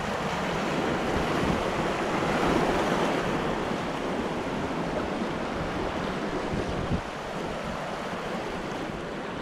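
Rushing creek water of a shallow riffle churning around an inflatable packraft, with some wind on the microphone. The rush eases a little in the last couple of seconds as the raft slides into calmer water.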